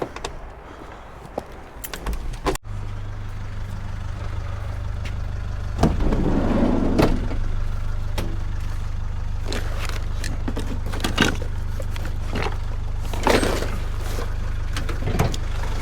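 A car engine running steadily with a low hum, with a few knocks and rattles over it. It starts abruptly about two and a half seconds in, after some brief knocking and handling sounds.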